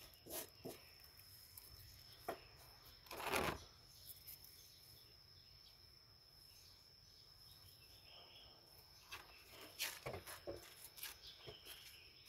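Faint, intermittent rustling and crackling of garlic chive leaves handled with gloved hands in a styrofoam planter, loudest about three seconds in and coming in quick bits again near the end.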